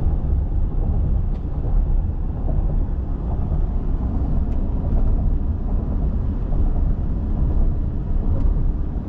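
Steady low rumble of road and engine noise heard inside the cabin of a moving vehicle at cruising speed.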